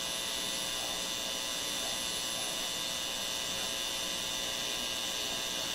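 Steady electronic hum with several constant tones from a Zenith K510GA tube AM radio's speaker, as it plays a signal generator's 600-kilocycle test signal while its oscillator slug is being aligned for maximum output.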